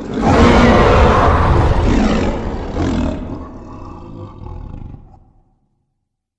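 Godzilla-style kaiju roar sound effect: one long, rough roar, loudest for its first couple of seconds, then trailing off and ending about five seconds in.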